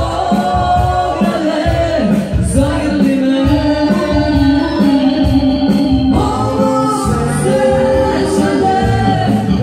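Live Balkan folk dance music from accordion and electronic keyboard, a melody over a steady beat.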